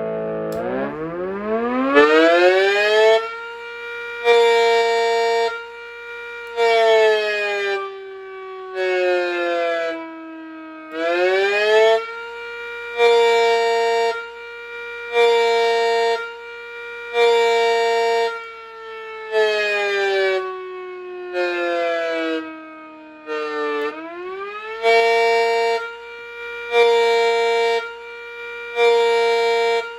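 Miniature A.C.A. Cyclone 125 siren sounding a simulated pulsed wail at a slow flash rate. It winds up in the first few seconds, then its tone is chopped on and off about every two seconds while its pitch slowly sags and climbs back up, twice over.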